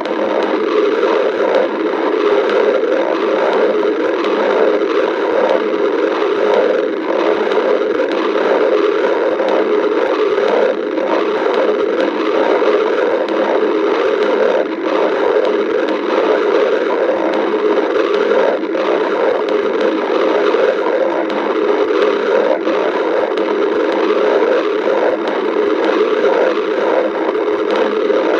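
Stomach rumbling and gurgling picked up by a microphone held close to the belly, heard as a steady, loud rushing noise that barely changes.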